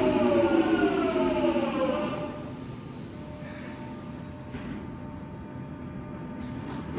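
1996 Stock tube train's traction motors whining with a falling pitch as it brakes to a stop, fading out about two seconds in. The stopped train then stands with a low steady hum and faint steady tones.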